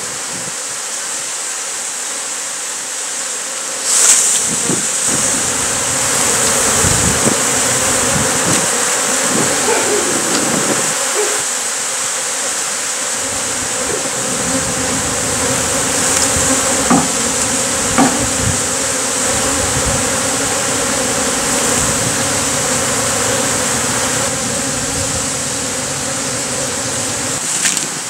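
Many honey bees flying around an opened nest, a dense steady buzzing hum. A sharp knock comes about four seconds in, and two lighter ones come just past the middle.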